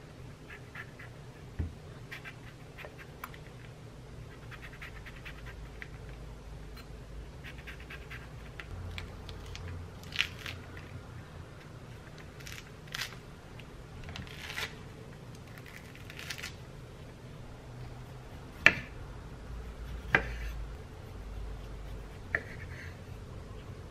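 Grapefruit peel being torn and pulled off by hand: scratchy, crackling tearing with small clicks. Then a knife cuts the peeled grapefruit on a wooden cutting board, with two sharp knocks of the blade on the board late on and a lighter one just after.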